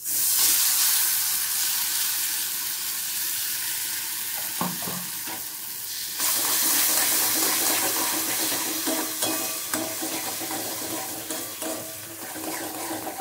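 Ground flat-bean paste dropping into hot spiced oil in a wok-style pan: a sudden sizzle that keeps hissing as the paste is stirred and scraped with a spatula. The sizzle grows louder again about six seconds in.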